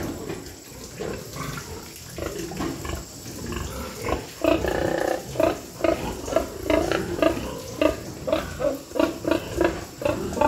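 Pigs grunting: a longer call about four and a half seconds in, then a quick run of short grunts, about three or four a second.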